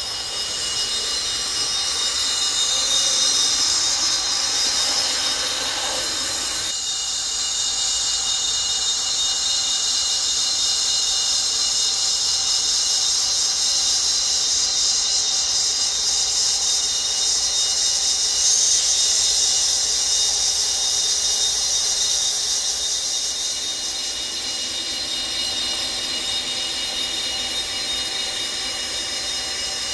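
Model United Aircraft Turbotrain running along the track, giving a steady, high-pitched whine.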